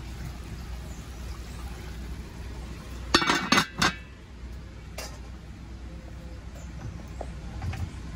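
Aluminium lid clinking against a metal caldero as it is set on: a quick cluster of metallic clinks about three seconds in and a single clink about a second later.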